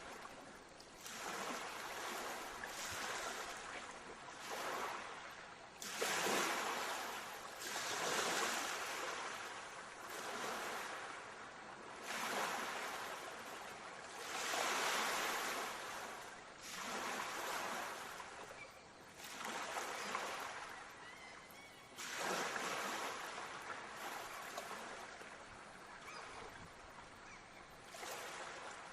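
Sea waves breaking on a shore, one after another every few seconds, each wash starting suddenly and fading as it runs out.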